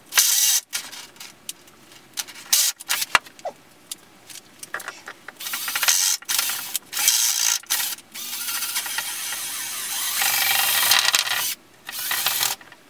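Power drill running in several short bursts, then a longer run of a few seconds later on, its bit cutting a hole through the carbon-fibre foil mast.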